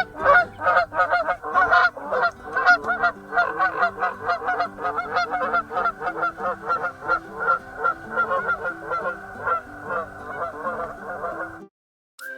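Geese honking in quick, overlapping calls of about four or five a second, kept up without a break until the sound cuts off abruptly near the end.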